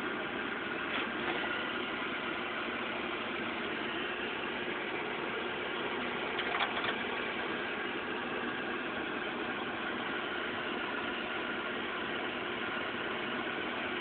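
Steady mechanical drone with a faint high whine in it, and two brief clicks, one about a second in and one about six and a half seconds in.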